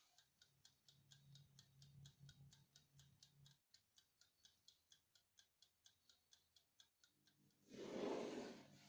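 Faint, steady clockwork ticking of a timer, about three to four ticks a second, with a low hum beneath it for the first few seconds. Near the end a brief, louder rush of noise.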